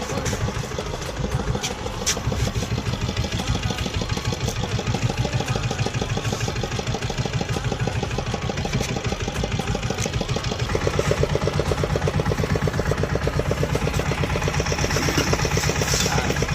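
Boat engine running with an even, rhythmic pulse; it gets louder about ten seconds in.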